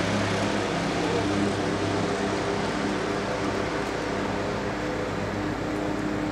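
A motor running steadily: a low mechanical hum with a few held drone tones that shift slightly in pitch.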